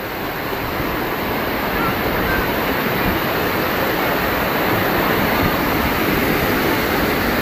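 Amboli waterfall's falling water rushing: a steady, dense noise of water that swells a little over the first second or two.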